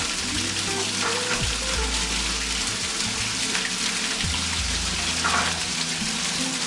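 Water gushing steadily from a pipe into a plastic bucket and splashing over a metal floor-drain grate, as hot water is flushed through the domestic hot-water circulation line. Background music plays underneath.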